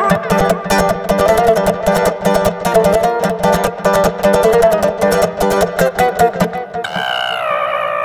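Instrumental music: a plucked string instrument playing rapid, repeated notes, giving way about seven seconds in to a held tone that slides up and down in pitch.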